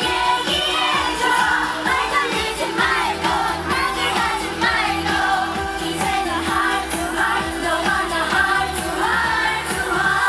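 K-pop song performed live over a concert sound system, with a girl group singing over a steady beat, recorded from within the crowd. The music cuts off right at the end.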